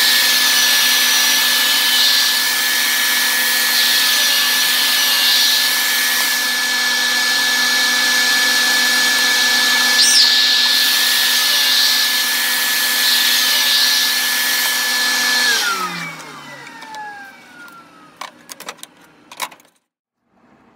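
SawStop table saw running at full speed through a cut in a blue plastic sheet, a steady high whine over a hiss. About fifteen seconds in it is switched off and its pitch falls as it winds down, followed by a few sharp knocks.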